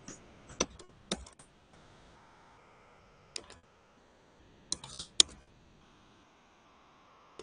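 Computer keyboard keys clicking: about half a dozen irregular, scattered keystrokes, the loudest a little over five seconds in, over faint room tone.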